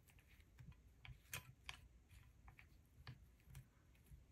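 Faint, scattered light clicks of small rusty nails shifting and ticking against a glass baking dish as lace is pressed down onto them.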